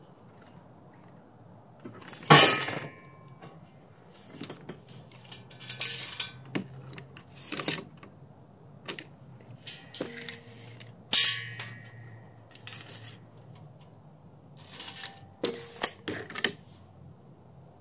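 Steel square tubing and steel angle being handled on a workbench: a series of metal clanks, knocks and scrapes, some ringing briefly, the loudest about two seconds in and again past the middle.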